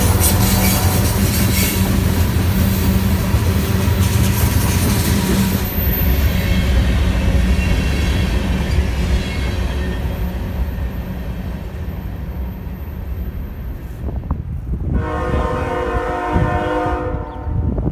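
Freight cars rolling past with a steady wheel rumble and clatter. Near the end a locomotive horn sounds for about two seconds, and a crossing bell starts ringing just after.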